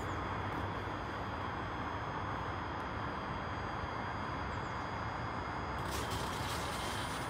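Hitachi Class 385 electric multiple unit standing at the platform, a steady hum with thin, high steady whines from its onboard equipment. About six seconds in, a hiss joins as the unit gets ready to pull away.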